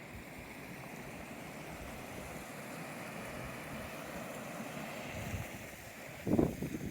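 Steady rush of water flowing from a lake outlet. About six seconds in, a few louder irregular rustling bumps come in over it.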